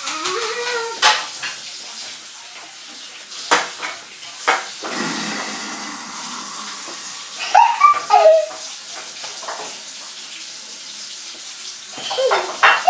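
Young children's short, high wordless vocal sounds, like squeals and babble, at the start, in the middle and again near the end. A few sharp knocks fall in the first few seconds, over a steady background hiss.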